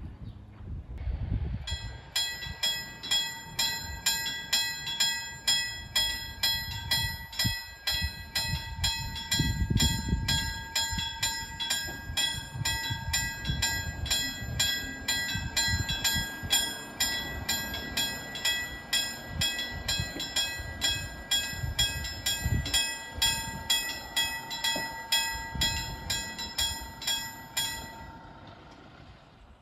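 Railway level-crossing warning bell ringing in evenly spaced strokes, a little under two a second, starting about two seconds in and stopping shortly before the end, over a low uneven rumble.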